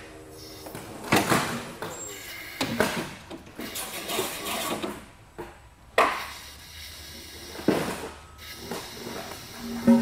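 Irregular knocks and clunks, a handful of them a second or more apart, as a cut concrete floor slab hanging from eye bolts and a shackle on an electric forklift is lifted and swung out of its hole.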